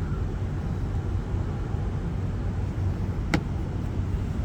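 Steady low hum of a car, with one sharp click about three seconds in as the wire is tucked up behind the plastic trim.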